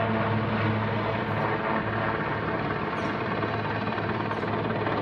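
Helicopter hovering with an underslung load: a steady, low rotor and engine drone that holds one pitch.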